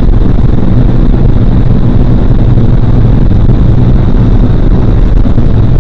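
Vertical indoor wind tunnel running: the loud, steady rush of the airflow with a low, even drone from the fans.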